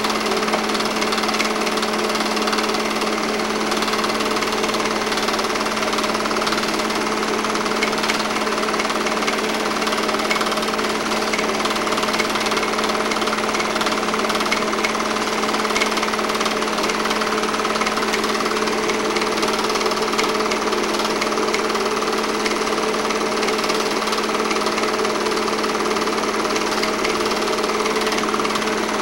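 8mm film projector running steadily: a fast, even mechanical clatter over a constant motor hum.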